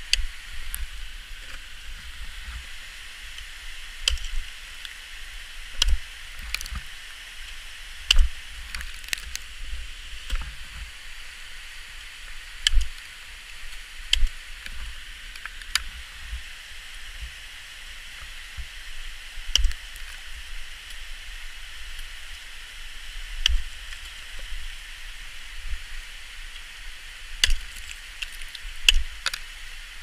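Ice axes being swung into frozen waterfall ice: sharp chopping strikes at irregular intervals of one to four seconds. A steady hiss runs underneath.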